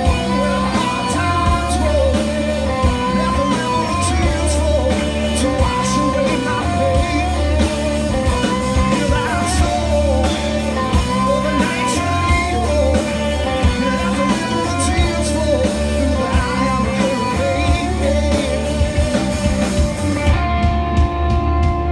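Live blues-rock band playing an instrumental passage: an electric guitar lead line bending and wavering over bass and drums.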